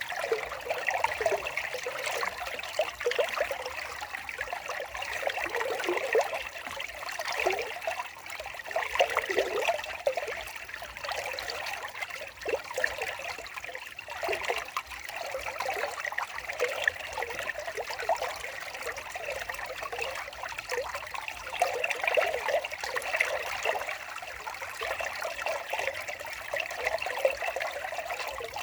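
Water trickling and splashing steadily over stones, as in a small stream.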